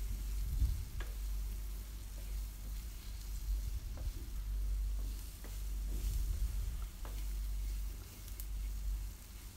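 Shallots, garlic and drumstick pieces sizzling in gingelly oil in a steel kadai while being stirred with a wooden spatula, which scrapes and taps the pan now and then.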